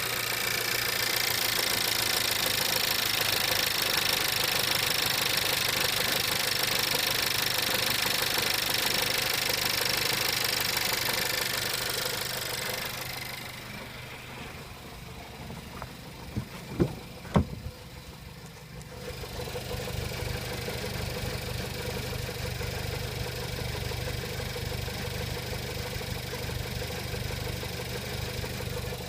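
A 1.4 TSI engine with a DQ250 six-speed DSG gearbox running, with a knock from the flywheel. A few loud, sharp knocks come about halfway through, while the engine sound is quieter; steady running resumes a few seconds later.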